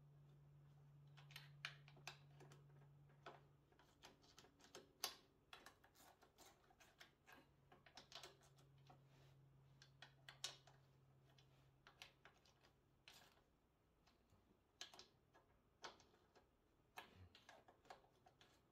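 Faint, scattered clicks and light metal taps of a hand ratchet and socket being worked on a small engine, irregularly spaced, the loudest about five seconds in.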